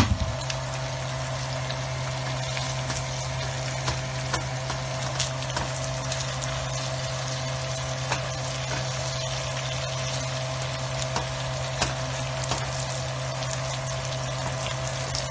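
Ground beef and onions sizzling in a frying pan in their grease, with scattered small pops and the scrape of a spatula stirring them, over a steady low hum. A sharp knock sounds right at the start.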